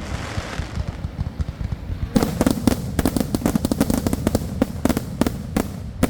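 Backyard fireworks going off: a brief hiss, then a rapid barrage of sharp cracks and bangs from about two seconds in, over a steady low rumble.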